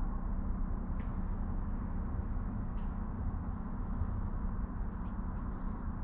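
Steady low outdoor rumble with a faint hum running through it, and a few faint short chirps about a second in, near three seconds and near five seconds.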